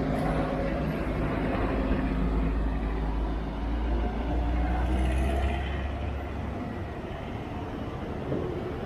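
Street traffic with a motor vehicle's engine running close by; its low rumble is strongest for the first six seconds or so, then fades away.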